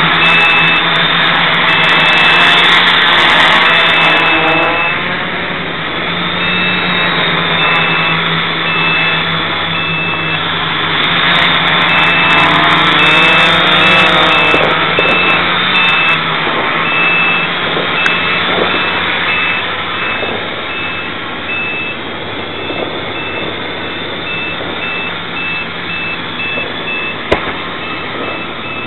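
MX400 quadcopter's electric motors and propellers whirring, the pitch rising and falling as it manoeuvres, with a high beep repeating over and over: the low-battery warning. A few faint sharp pops near the end.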